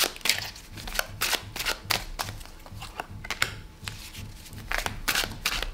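Tarot cards being handled and dealt onto a table: a run of quick, sharp card snaps and slides, several a second, as cards are split off the deck and laid down.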